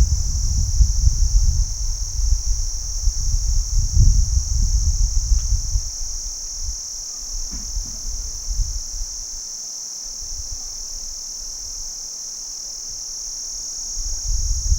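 Crickets chirring in a continuous high-pitched trill. Under it, a low rumble comes and goes: strong in the first several seconds, dying away in the middle, and rising again near the end.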